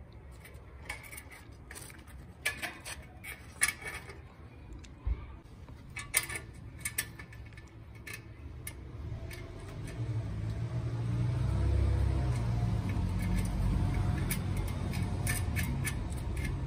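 Small metallic clicks and clinks as the nuts and washers on a city bike's front wheel axle are fitted and threaded on by hand. From about ten seconds in, a low steady rumble runs underneath.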